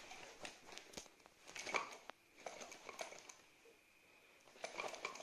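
Screwdrivers, a ratchet and other hand tools carried in a leather tool belt clinking and knocking together with rustling, in four short bursts as the wearer moves.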